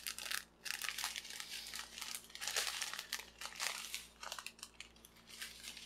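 Small clear plastic bags of diamond painting drills crinkling and rustling irregularly as they are handled and laid out.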